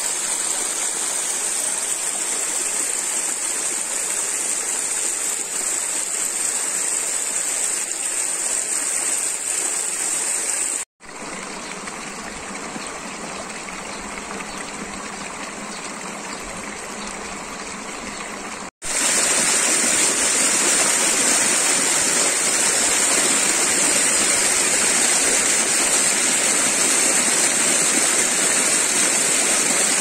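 Spring water running down moss-covered channels and small cascades, a steady rushing noise. It cuts out for an instant about 11 seconds in, runs quieter over a shallow stretch, then cuts again about 19 seconds in and comes back louder where the water pours white down a narrow channel.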